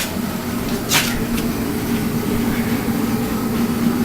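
A steady low machine hum, with a sharp clank about a second in and a lighter click just after it.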